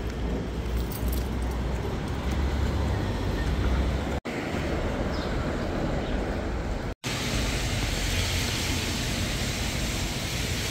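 City street ambience of traffic with a strong low rumble, broken by two abrupt cuts. After the second cut a steadier, brighter hiss runs on.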